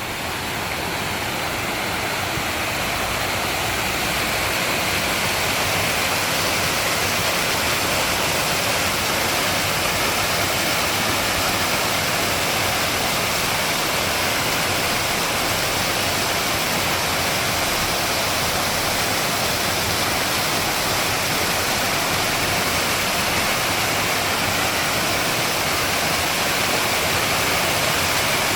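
Steady rushing of flowing water, building a little over the first few seconds and then holding even.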